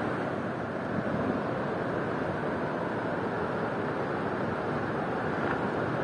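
Ocean surf breaking and washing up the shore, a steady rush of water noise.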